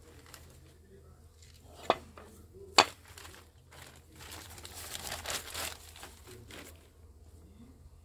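Handling of a stingless-bee hive box: two sharp knocks about a second apart, then a few seconds of rustling and scraping.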